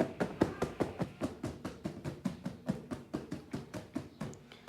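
Rapid, even tapping on a box, about five sharp taps a second, as in an ASMR unboxing.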